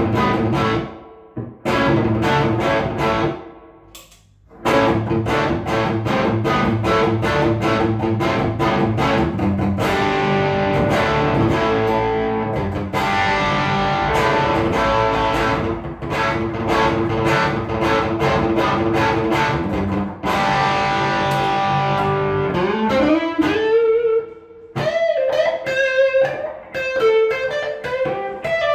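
Electric guitar played through an amplifier: repeated strummed chords with two short breaks near the start, then near the end a single-note lead line with bends and slides.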